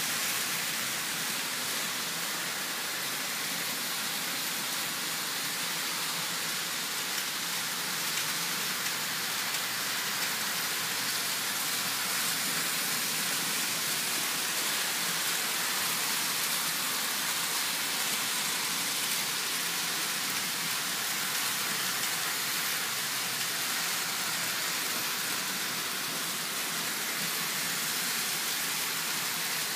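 Several 1950s–60s Märklin HO model trains running together on three-rail metal track, a steady rushing whir of small wheels on the rails and AC motors.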